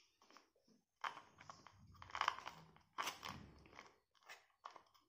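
Masonry drill bit being pushed and twisted into a new rotary hammer drill's chuck. It makes faint, irregular scraping and clicking as the shank grates in the chuck, a tight fit because the chuck is new.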